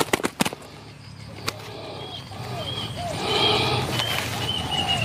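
A quick run of sharp knocks in the first half-second and one more knock about a second later. Then spotted doves cooing in short repeated phrases, with small birds chirping high and thin over them.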